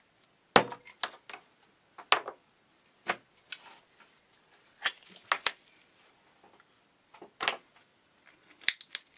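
Small bottles, jars and lids being handled, opened and set down on a table: about eight separate sharp clicks and knocks with quiet gaps between them.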